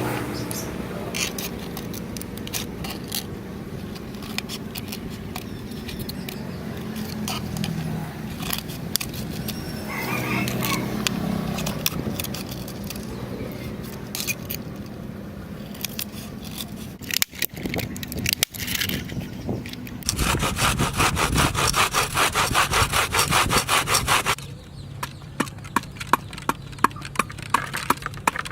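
Hand saw cutting with rapid back-and-forth strokes for about four seconds, two-thirds of the way through, after scattered handling clicks. Sparse sharp taps and clicks follow.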